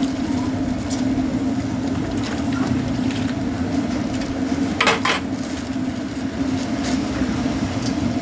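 A metal ladle clinking against a large aluminium stock pot while bakso and broth are ladled out, with two sharper clinks close together about five seconds in and a few lighter ones, over a steady low hum.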